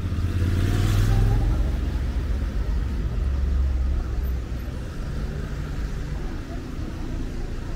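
City street traffic: a motor vehicle passes close with engine rumble and tyre noise, loudest about a second in, then the steady low rumble of traffic carries on.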